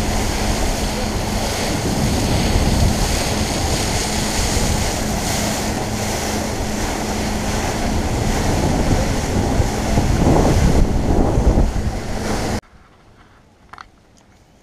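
Heavy wind buffeting an action camera's microphone on a fast-moving tour boat, mixed with the rush of water along the hull and a steady low hum underneath. The noise cuts off abruptly near the end, leaving a quiet background with a faint click.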